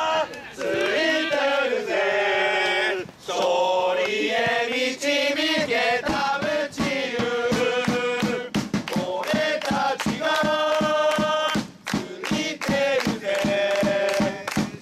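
Football supporters chanting in unison, a player's individual chant sung by many male voices with short breaths between phrases. A steady beat joins about five seconds in and keeps going under the singing.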